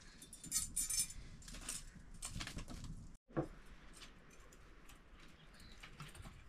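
Metal tongs clinking against a wok over a wood fire, a few sharp ringing clinks in the first three seconds, then faint background with small ticks.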